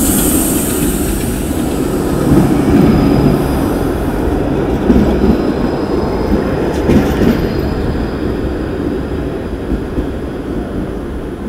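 Low-floor tram passing close, its steel wheels rumbling and clacking over the rails, with a faint high wheel squeal in the middle.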